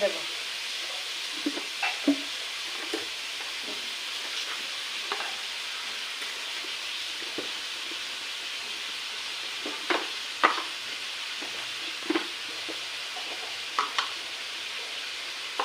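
Chicken pieces and fried onions sizzling steadily in hot oil in a pan, with a spoon knocking and scraping against the pan now and then as they are stirred.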